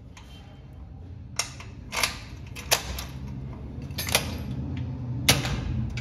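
Electric rim door lock being worked with a key: five sharp metallic clicks of the cylinder and bolt, spaced about a second apart. This is a test of its newly fitted outside key cylinder.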